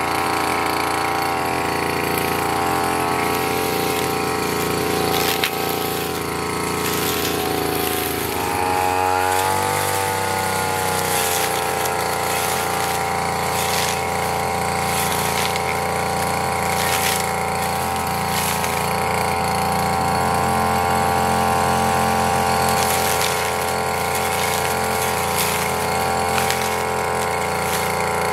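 RYU petrol brush cutter engine running steadily, revving up to a higher speed about nine seconds in and holding there while it cuts grass.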